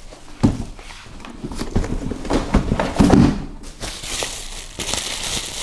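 Packaging being handled: a string of light clicks and knocks, then rustling and crinkling from about four seconds in.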